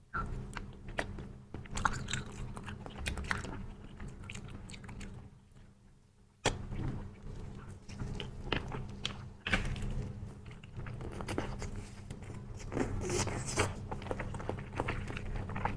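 Close-up mouth sounds of eating a squeezed tube of matcha bubble-tea jelly: sucking the soft jelly from the tube and chewing it, with irregular wet clicks and smacks. The sounds ease off for a moment about four to six seconds in, then resume with a sharp click.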